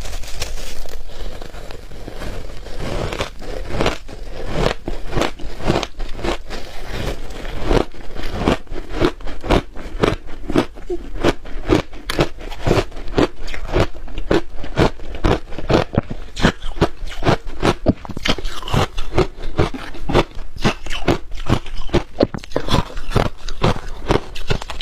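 Close-up biting and chewing of shaved ice frozen with matcha and milk powder: a steady run of crisp crunches, several a second.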